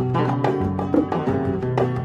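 Background instrumental music led by plucked strings, with quick picked notes over a steady bass.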